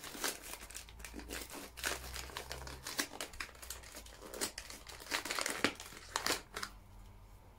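A small plastic packet crinkling and crackling in the hand as it is pulled open and squeezed, a scatter of irregular crackles that thins out near the end.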